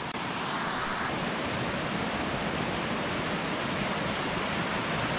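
Steady rushing of a fast-flowing mountain creek, a continuous hiss of running water that swells slightly in the first second.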